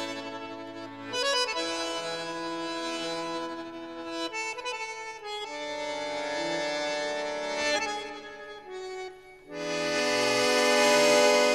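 Accordion music: long held chords that change every second or two. After a brief dip it swells into a fuller, louder chord near the end.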